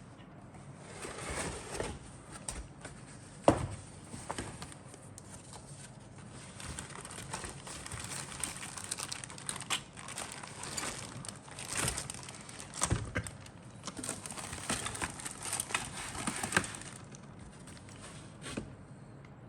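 Plastic bags and box of a model kit being handled, crinkling and rustling in bouts, with scattered sharp clicks and knocks; the sharpest knock comes about three and a half seconds in.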